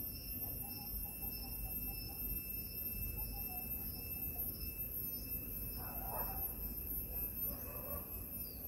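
Outdoor ambience: a steady low rumble under a steady high insect drone, with faint repeated chirps through the first half and a short animal call about six seconds in.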